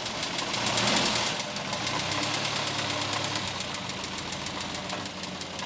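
Austin 1300 Countryman's 1275 cc A-series four-cylinder engine running, with a rapid even ticking over its hum; it swells briefly about a second in.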